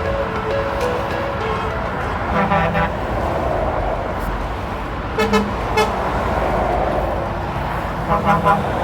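Truck horns sounding in several short chord-like blasts over steady passing motorway traffic: one about two seconds in, two more around five to six seconds, and another near the end.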